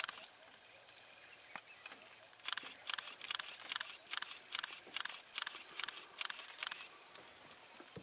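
A camera shutter firing in a rapid burst, about a dozen sharp clicks at roughly three a second, starting a couple of seconds in and stopping about a second before the end.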